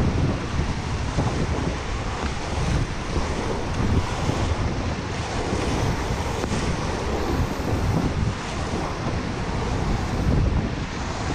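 Whitewater of a Class 5 rapid rushing and crashing all around a packraft, with waves splashing over the boat and wind buffeting the GoPro microphone. Loud and steady throughout, surging and easing as the boat rides the waves.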